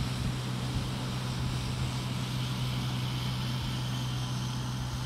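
Tractor towing a beach-cleaning rake across the sand, its diesel engine running with a steady low hum.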